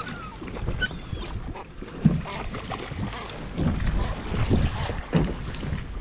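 Wind buffeting the microphone and water lapping against a small boat's hull in uneven low surges, with a few faint high gull cries about a second in.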